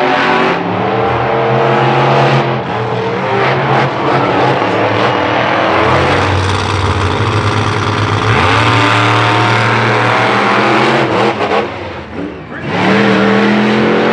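Monster truck engines running hard and revving as the trucks race around the dirt track, the pitch climbing and falling with the throttle. The sound drops off briefly about twelve seconds in, then picks up again.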